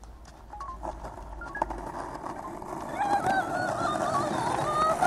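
Skateboard wheels rolling over rough, cracked asphalt, growing louder as the board comes closer. Over the last two seconds a child gives a high, drawn-out, wavering yell.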